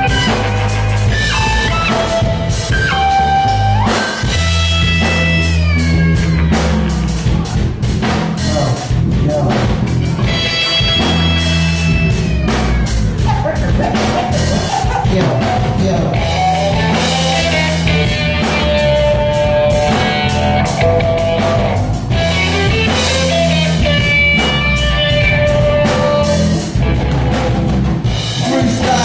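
Live band playing a dub track at full volume: a drum kit driving a dense beat under heavy low bass notes, with electric guitar and keyboard lines on top.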